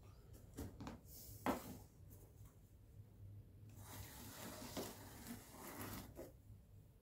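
Cardboard being handled and pressed into shape: a single sharp tap about a second and a half in, then a few seconds of faint scraping and rustling of card against card.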